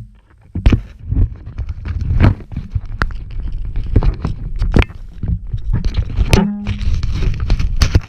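Loud, irregular knocks and rumbling buffeting on the microphone of a camera mounted on an FPV racing quadcopter, with a short pitched tone about six and a half seconds in.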